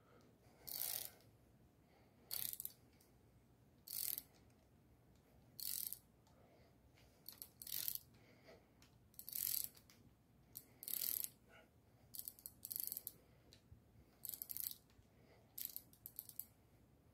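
A socket ratchet clicking in short bursts, about every one and a half to two seconds, as it turns a rocker arm adjusting nut on a V8 with hydraulic lifters. Each burst is a back-stroke of the handle while a loose rocker is snugged down to take up the valve lash.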